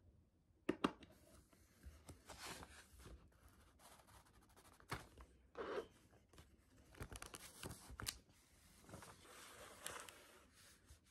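Two sharp clicks from the buttons of a small digital timer being pressed, then paper rustling as a stack of printed study pages is handled. Near the end comes the faint scratch of a pen on paper.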